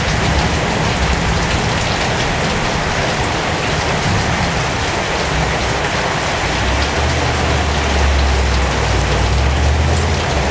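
Strong rain falling steadily on the leaves of a pomegranate tree, a dense, even patter of drops. A low rumble swells about two-thirds of the way through.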